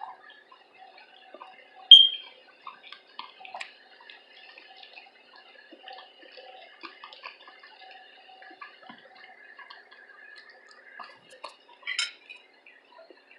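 Close-miked eating sounds: a string of small wet mouth clicks and chewing noises, with one sharp ringing clink, like a utensil striking a dish, about two seconds in and a short clatter near the end.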